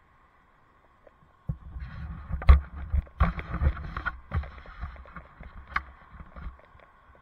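Rough low rumbling and several sharp knocks on the helmet camera's microphone, starting about a second and a half in and dying away near the end, typical of wind buffeting and jolts while riding.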